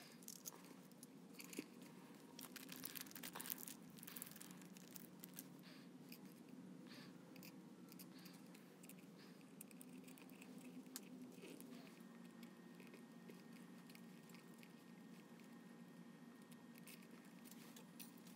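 Very faint, irregular clicks and light handling noises as small metal clock parts are fitted onto the shaft of a quartz clock movement, busiest in the first few seconds, over a faint steady hum.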